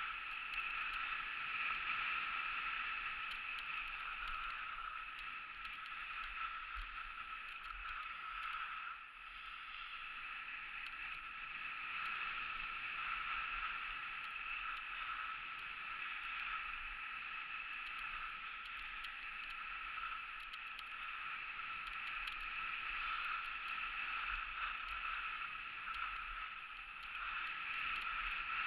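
Skis gliding and scraping over groomed, packed snow in a continuous downhill run, a steady rushing hiss with wind passing the camera.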